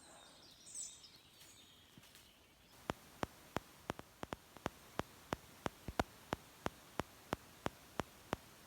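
Faint outdoor background, then from about three seconds in a very regular series of sharp clicks, about three a second.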